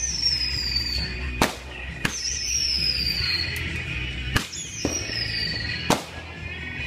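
Fireworks going off: about five sharp bangs, separated by high whistling tones that slowly fall in pitch.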